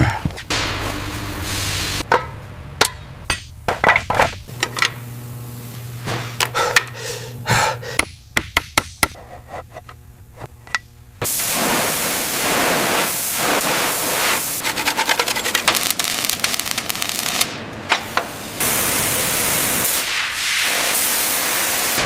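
Repair work on a heavy truck: a run of sharp metal knocks and taps at an uneven pace, then, about halfway through, a steady loud rushing noise that breaks off briefly twice near the end.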